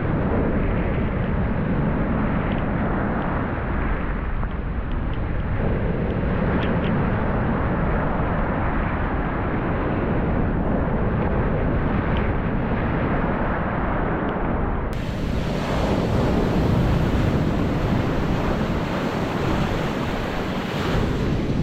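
Ocean surf breaking and washing ashore, with wind buffeting the microphone. About fifteen seconds in, the hiss suddenly turns brighter.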